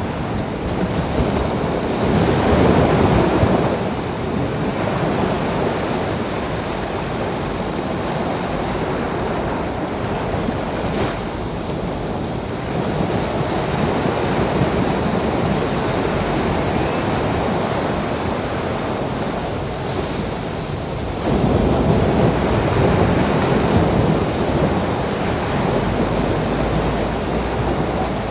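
Sea waves breaking and washing on a shore in a steady rush, with two louder swells, one about two seconds in and one about twenty-one seconds in.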